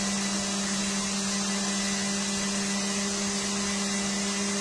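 Electric stand mixer running at a constant speed, its wire whisk beating cream cheese in a glass bowl: a steady motor hum of unchanging pitch with an even whirring hiss.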